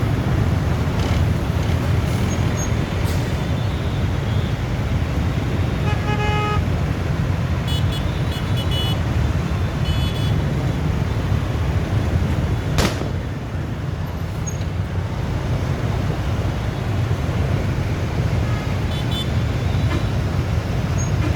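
Steady road traffic rumble with short vehicle horn toots now and then, and one sharp crack about halfway through.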